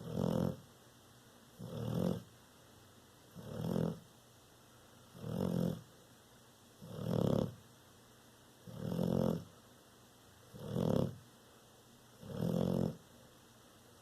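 Bullmastiff–American Bulldog cross snoring in its sleep: a low snore on each breath, repeating evenly about every second and three-quarters, eight times.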